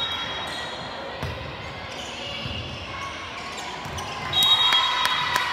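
Basketball bouncing on a gym floor in a game, a few dull thuds a second or so apart, over crowd voices, with short high squeaks about four and a half seconds in.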